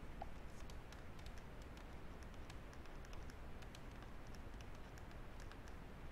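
Faint, irregular light clicks and taps of hand-writing being drawn on a computer with a pointing device, several a second, over a low steady hum.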